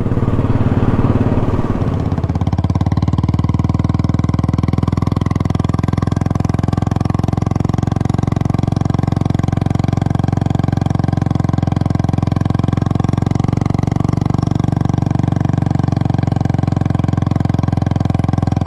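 Royal Enfield Classic single-cylinder engine running at a steady cruising speed, its fast, even beat of firing pulses holding level as the motorcycle rides along.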